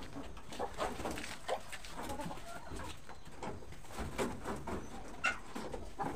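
Chickens clucking in a wooden, wire-mesh coop, a string of short clucks scattered throughout.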